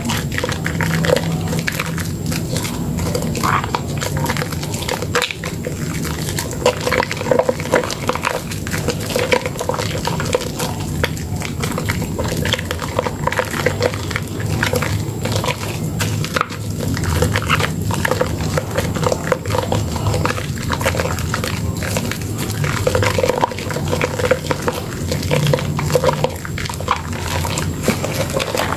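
Wet squelching and squishing of thick soap lather as hands squeeze and knead a soaked, softened bar of Dermythol Green soap over a basin of soapy water, a continuous run of small irregular squelches and crackles.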